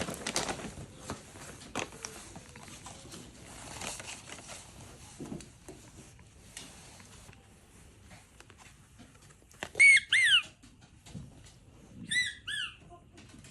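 A dog whining in two short, high squeaks with falling pitch, about ten and twelve seconds in, with light rustling before them.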